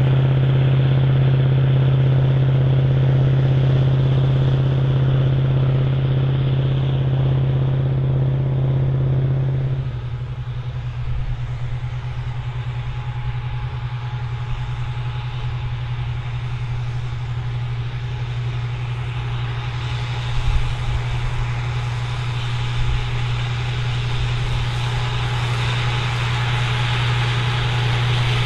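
Big articulated farm tractor's diesel engine running steadily with a deep, even note. About ten seconds in the sound changes abruptly: the upper tones of the engine note drop away and it becomes a little quieter, then it runs on steadily.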